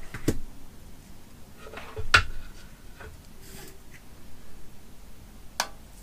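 Light clicks and knocks of soldering tools being handled on a workbench mat, the metal helping-hand stand and solder spool being moved: three short taps, the loudest about two seconds in.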